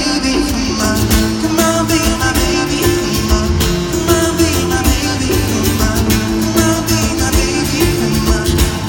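Live pop music played through an arena sound system: an acoustic guitar with a steady, percussive beat.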